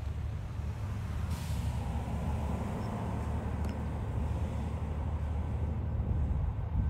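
Wind buffeting the microphone with a low, uneven rumble, and a short hiss about a second and a half in.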